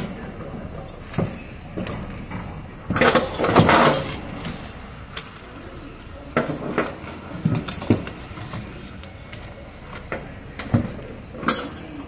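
Metal hooks and fittings of a lifting sling and ratchet strap clinking and knocking as the strap is rigged by hand, with a louder rustling scrape lasting about a second, about three seconds in.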